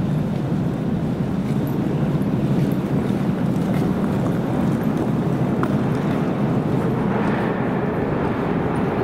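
Metro train approaching through the tunnel into the station: a steady, echoing rumble that grows brighter in the last couple of seconds as the train nears the platform.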